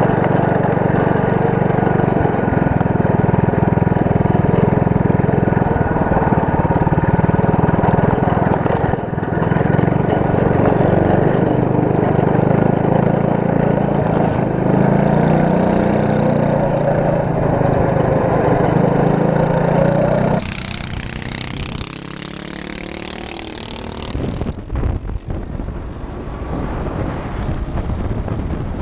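Go-kart's small engine running hard at speed, heard from the driver's seat, its pitch wavering up and down as the throttle changes. About twenty seconds in it cuts to wind rushing across a helmet-mounted microphone on a moving dirt bike, its engine low underneath.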